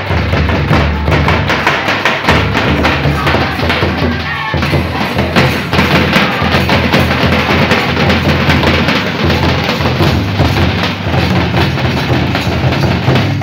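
Dhol and nagada drums beaten together in a loud, dense, steady rhythm, with deep booming beats under quick sharp strokes.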